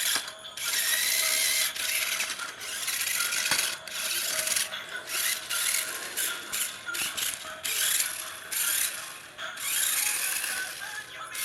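Electric RC monster truck's motor and gearbox whirring in short, irregular bursts of throttle, starting and stopping every second or so.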